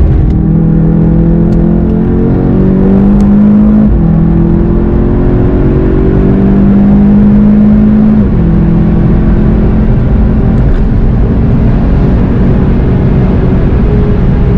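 VW Golf 7 GTI TCR's turbocharged 2.0-litre four-cylinder pulling hard under full throttle. The engine note climbs steadily and drops abruptly at two upshifts, a little under four seconds in and about eight seconds in.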